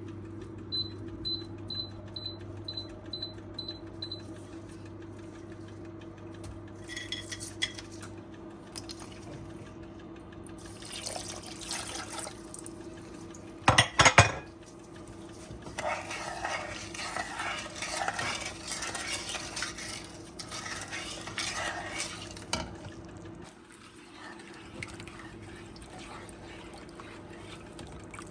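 Kitchen utensils clinking and scraping against pots and bowls while something is stirred, with one sharp clatter about halfway through as the loudest moment. A quick run of short high electronic beeps comes near the start, over a steady low hum.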